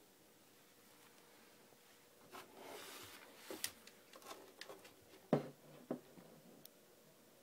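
Handling noise: rustling and light clicks starting about two seconds in, then two knocks a little after five and six seconds in, the first the loudest.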